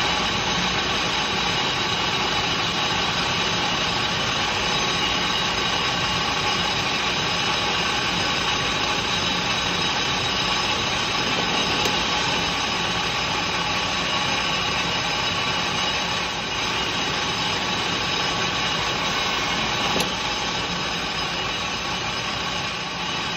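Metal lathe running steadily with a constant motor and gear whine while the tool cuts a dish into the crown of a spinning aluminium piston.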